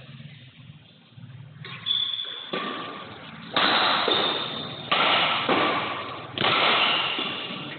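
Badminton rackets striking a shuttlecock in a fast rally: five sharp hits about a second apart, each ringing on in the echo of a large metal-roofed hall.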